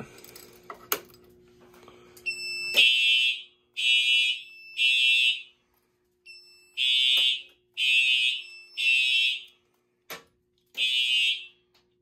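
Fire alarm horn sounding the evacuation signal in the temporal-three pattern, set off by a manual evac (drill) key switch: three short high-pitched blasts, a pause, three more, a pause, then another blast near the end. A single click about a second in, from the key switch being turned.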